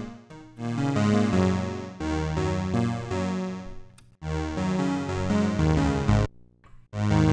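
Crumar Stratus polyphonic synthesizer playing chords in short phrases. The phrases stop abruptly about four seconds in and again near six seconds, and one more chord sounds near the end.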